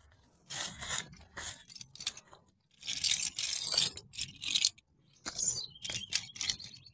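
Irregular rustling and scraping of bintol crab lift nets, nylon netting on crossed stick frames, handled and threaded onto a pole one after another, in several short spells with the longest about three seconds in.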